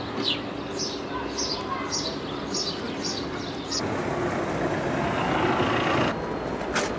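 Street sounds: a short, high, falling chirp repeats about twice a second for the first half. Then a rushing noise like passing traffic swells and cuts off about six seconds in, followed by a sharp click.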